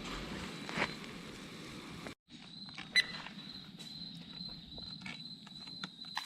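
Insect trilling on one steady high note, cricket-like, with scattered light clicks and taps around it; the sound drops out briefly about two seconds in.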